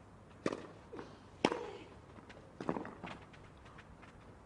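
Tennis serve and rally on a clay court: rackets strike the ball with a sharp pock about once every second or so, with softer knocks in between.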